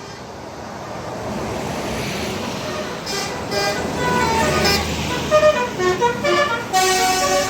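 A bus's multi-tone telolet horn plays a quick tune of changing notes. Underneath is the road noise of the bus approaching, which swells over the first couple of seconds before the horn starts about three seconds in.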